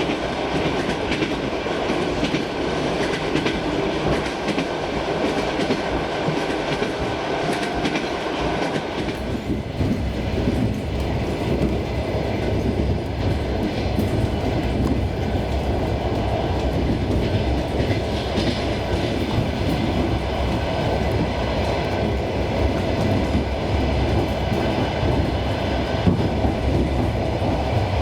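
Suburban electric train heard from inside a passenger car while running, with wheels clattering over rail joints. About a third of the way in, a deeper steady rumble sets in under the clatter.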